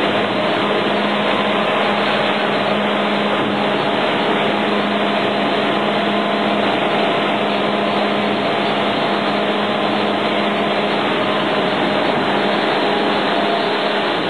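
PE film pelletizing machine running: a loud, steady machine noise with a constant low hum and a few fainter steady tones above it, unchanging throughout.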